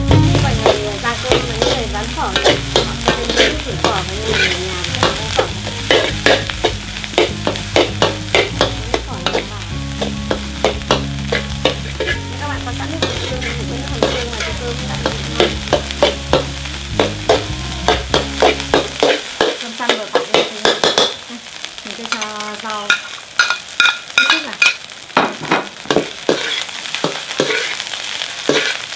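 Metal ladle scraping and knocking against a steel wok as egg fried rice is stir-fried, with the sizzle of the frying rice; strokes come about one to two a second. A low steady hum underneath stops abruptly about two-thirds of the way through.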